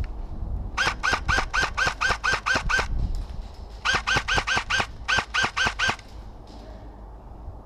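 Airsoft electric rifle, an LCT AKMS, firing rapid shots at about five a second, each shot a sharp crack with a short metallic twang from the gearbox. A string of about ten shots, then two shorter strings of about four after a pause of about a second.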